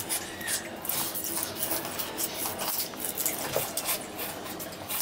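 Raw sugar cane being chewed and stripped: irregular crunching and tearing of the tough fibrous stalk and husk.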